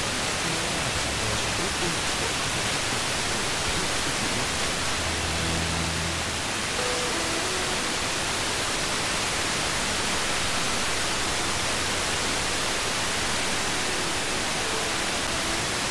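FM radio static: a steady hiss from a receiver tuned to 90.0 MHz as the weak station carried by double-hop sporadic-E propagation fades down into the noise, with only faint traces of its audio left under the hiss.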